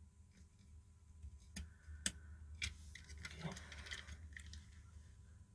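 Faint handling noise: a few sharp clicks, the loudest about two seconds in, then a short scraping rattle as a small circuit board with a switch fitted is handled and clamped into a spring-loaded plastic PCB holder.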